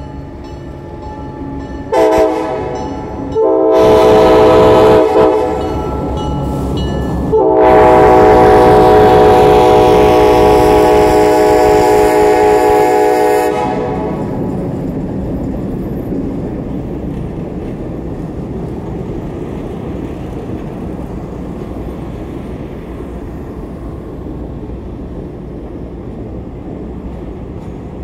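Multi-chime air horn of the Arkansas & Missouri Alco C420 No. 68 sounding three blasts: two short ones, then one held about six seconds, over the rumble of the passing locomotive. The horn then cuts off, and the passenger cars roll past with a steady rumble of wheels on rail.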